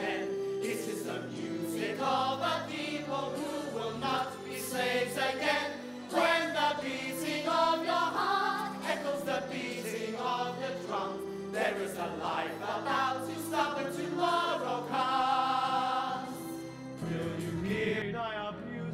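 A choir of voices singing a musical-theatre chorus with accompaniment. Near the end the music cuts abruptly to a different piece.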